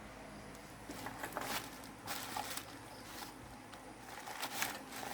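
Light clicks, knocks and scrapes of computer parts being handled and set down, a few scattered handling noises over a faint low hum.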